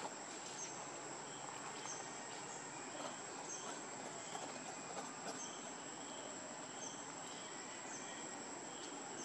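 Outdoor insect ambience: a steady high-pitched insect drone with faint short chirps repeating a little more than once a second, over a low background hiss.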